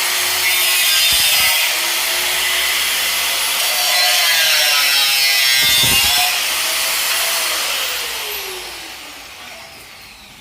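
Power tool cutting a slot into a rectangular metal tube, its motor pitch wavering as it bites. It winds down and fades over the last couple of seconds.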